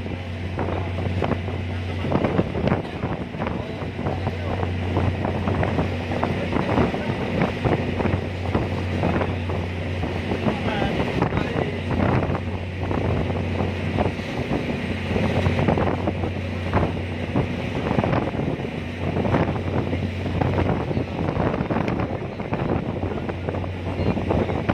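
Ferry engine running with a steady low drone, under strong wind buffeting the microphone in irregular gusts.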